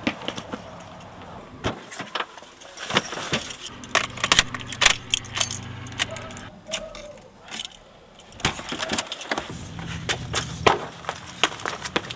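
Car keys jangling, with a run of sharp clicks and knocks as a sedan's door and ignition are handled. A low steady hum comes in twice.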